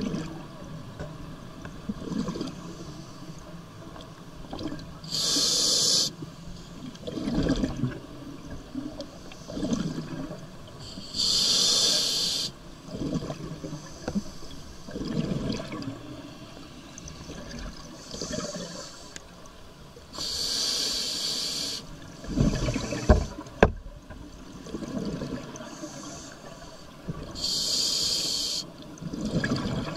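Scuba diver breathing through a regulator underwater: five loud hissing inhalations a few seconds apart, with the low bubbling rumble of exhaled air between them. Two sharp clicks come a little after the middle.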